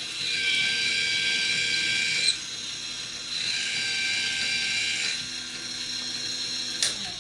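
Hornady Case Prep Trio's electric motor running with a steady whine as a trimmed .223 brass case is held to its spinning tools, twice for about two seconds, to chamfer and deburr the case mouth. A short click comes near the end.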